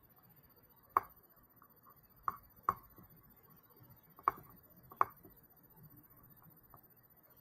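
Scattered sharp clicks at a computer, like keystrokes or mouse clicks: five louder ones at uneven spacing over about four seconds, with fainter ticks between.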